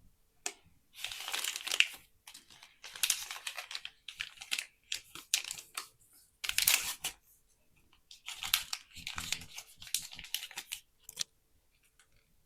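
Crinkly plastic toy packaging being torn and crumpled in several irregular bursts, with a few sharp clicks.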